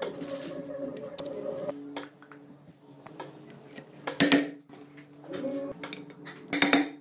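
Steel ball bearing and metal parts clinking and clattering against a Honda CRM250's bare aluminium crankcase as the bearing is handled and set into its seat. There are two short, loud clatters, one about four seconds in and one near the end.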